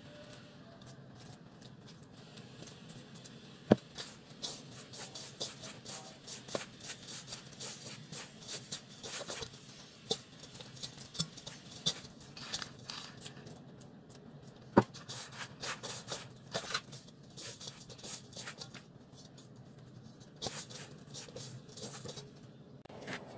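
A hand mixing and squeezing wet bread dough in a stainless steel bowl: a long run of short, sticky crackles and rustles. Two sharp knocks stand out, about four seconds in and again around fifteen seconds.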